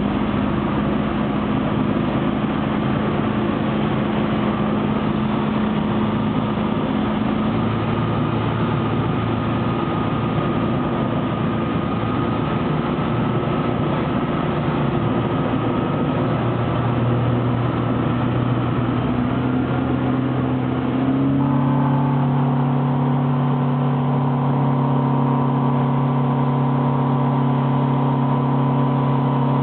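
Falcon 2000S light aircraft's engine and propeller droning steadily, heard from inside the cockpit. About twenty seconds in, the engine note shifts and grows a little louder.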